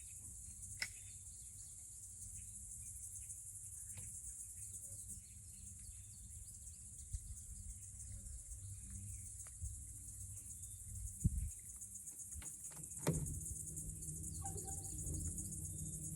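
Steady high-pitched chorus of insects buzzing along the riverbank, over a low rumble, with a few scattered clicks and knocks.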